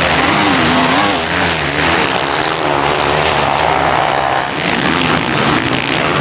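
Four-stroke motocross bike engines racing, the pitch rising and falling quickly as the riders work the throttle.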